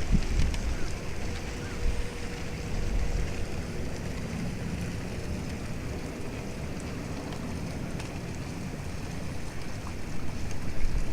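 Sightseeing boat under way: a steady low rumble of engine and water, with wind gusting on the microphone.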